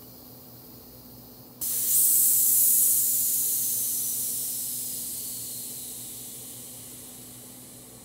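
SodaStream CO2 canister venting through its valve as a metal rod holds the valve pin open: a sudden high hiss starts about a second and a half in, is loudest for about a second, then slowly fades.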